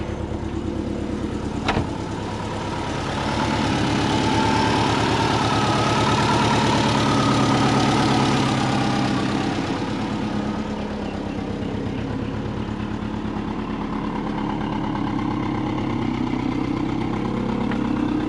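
Big-turbo Subaru EJ20 flat-four in a Forester idling steadily shortly after being started, louder for several seconds in the middle, with one brief click about two seconds in.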